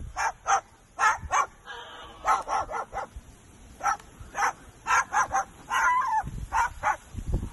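Sulphur-crested cockatoo barking like a dog: a quick, uneven run of short barks. A low rumble comes in near the end.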